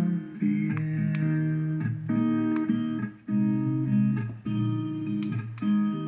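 Background music: a guitar song playing plucked and strummed chords, with no singing here. The music cuts off suddenly near the end.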